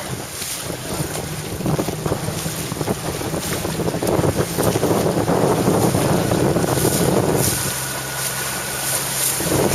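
Wind buffeting the microphone and water rushing past a sailing dinghy's hull as it moves, growing louder a few seconds in and easing off near the end.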